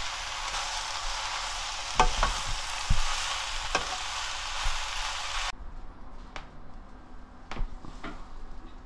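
Seasoned rehydrated dried eggplant sizzling in a frying pan as a spatula turns it, with a few sharp knocks of the spatula against the pan. The sizzling stops suddenly about five and a half seconds in, leaving only a few faint clicks.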